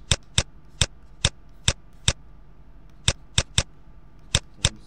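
About eleven sharp, irregularly spaced clicks from a computer pointing device used to handwrite sums on screen, with a pause of about a second near the middle, over a faint steady hum.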